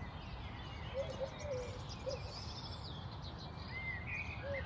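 Birds singing and calling in a park-like garden: scattered high chirps and twitters, with a few lower slurred call notes about a second in, around two seconds, and near the end, over a low steady rumble.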